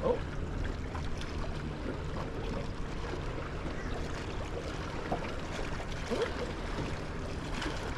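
Steady low hum of a boat motor under wind and water noise.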